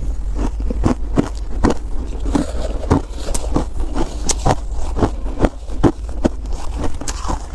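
Close-miked crunching of shaved ice being chewed, mixed with a metal spoon scraping and digging through crushed ice in a metal pot. Irregular sharp crunches come a few times a second over a steady low rumble.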